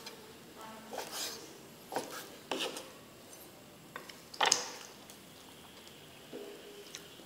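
Slices of grilled meat being tossed and mixed in a metal bowl: a handful of short scraping, rubbing sounds against the bowl, the loudest about four and a half seconds in.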